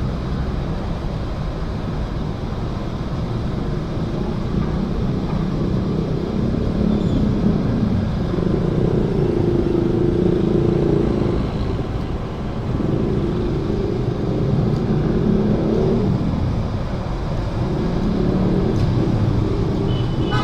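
Motor vehicle engines running with a steady low rumble, and an engine hum that swells three times.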